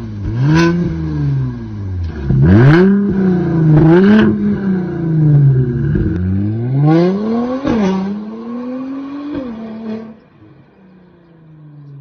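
Mercedes-Benz C43 AMG engine through an aftermarket exhaust and downpipe, revved up and let fall about five times in quick succession, with sharp drops at the top of some revs. It then settles to a quieter, steady idle for the last two seconds.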